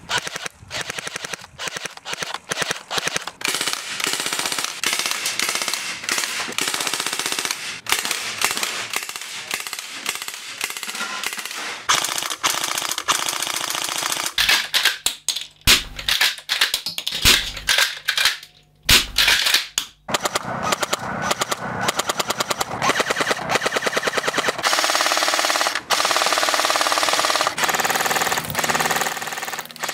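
A run of airsoft guns firing rapid full-auto bursts one after another, among them a Thompson submachine gun, a PPSh-41 and an MG42 machine gun replica. Short breaks between bursts come about halfway through, where one gun gives way to the next.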